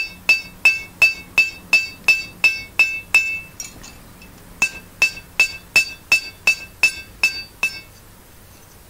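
Hand hammer striking a cold wrought iron dagger blade on a steel anvil, each blow ringing sharply. The blows come about three a second in two runs of roughly ten, with a short pause about three and a half seconds in, and stop about a second before the end.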